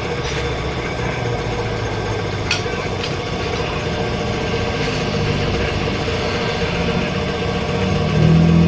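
Machinery running steadily with a low hum, with a few sharp metallic clicks in the first three seconds; the hum grows louder near the end.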